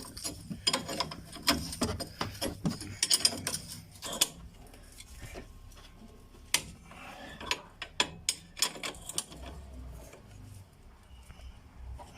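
Metal clicks and clinks of a wrench turning the screw of a tie rod end puller, metal on metal. The clicks are thick for the first few seconds and then come further apart.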